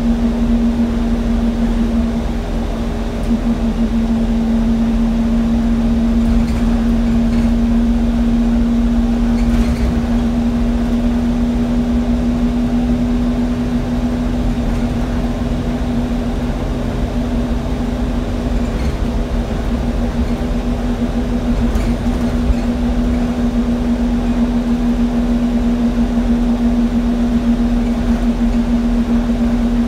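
Alexander Dennis Enviro200 bus running, heard from the rear seats: a low engine and road rumble under a steady whine that holds one pitch throughout, the kind of whine given off by the bus's engine cooling fan.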